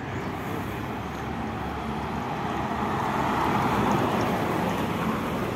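City bus driving past close by, its engine and tyre noise swelling to a peak about four seconds in and then easing off over steady street traffic.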